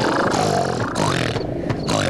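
Loud cartoon snoring sound effect: a rasping, roar-like snore with pitch that slides up and down.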